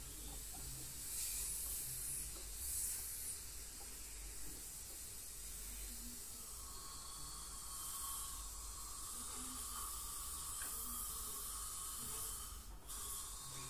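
Dental ultrasonic scaler and suction hissing with water spray while tartar is cleaned off the teeth, the hiss swelling now and then. A steady whine joins about six seconds in.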